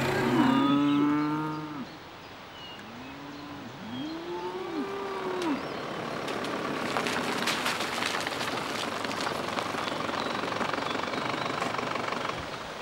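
Cattle mooing: one long low moo, then two or three shorter moos that rise and fall in pitch. From about halfway on, a steady vehicle noise runs on until shortly before the end.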